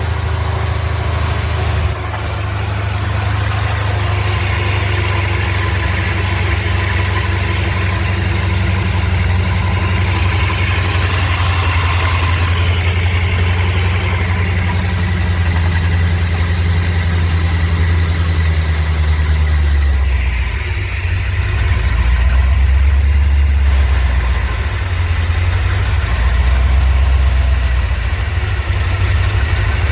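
1984 Corvette's 350 small-block V8 with Cross-Fire twin throttle-body injection idling steadily after its throttle-body gasket rebuild. About twenty seconds in, the idle note drops lower and wavers briefly.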